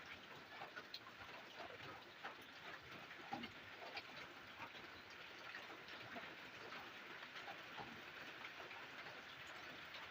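Faint, steady rain: an even hiss with many scattered drops ticking.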